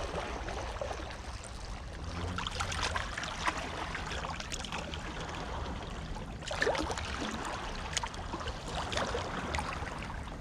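Small sea waves lapping and sloshing against rocks close to the microphone, a steady wash of water with small irregular splashes and a low rumble underneath, and one slightly louder splash about six and a half seconds in.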